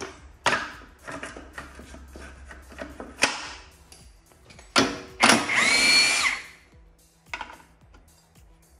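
Cordless impact wrench runs for about a second and a half on the flywheel nut, its whine rising and then falling. Before it come scattered knocks and clanks of metal parts being handled.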